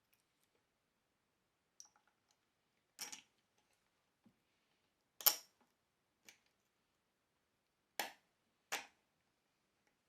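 Scattered knocks and clicks of metal hardware being handled while a swivel caster is fitted to a desk leg: about seven separate knocks with silence between, the loudest about five seconds in and two more close together near the end.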